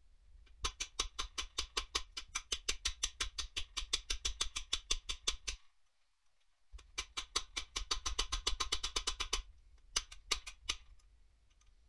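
Rapid, even metallic clicking, about eight clicks a second, in two runs of several seconds with a short pause between, like a tool being worked on the engine block. Near the end a hammer strikes the bare Volvo D24 diesel block a few times in quick succession.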